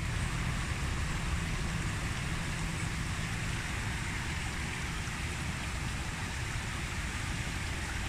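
Steady rush of shallow stream water running over rocks, with a low rumble underneath.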